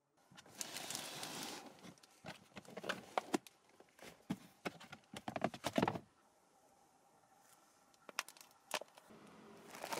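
Papers rustling, then a run of sharp clicks and knocks as a plastic storage tote's lid and contents are handled, and a few lighter clicks later on.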